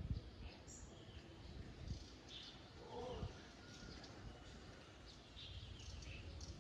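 Faint, scattered short bird chirps over a low rumbling background noise.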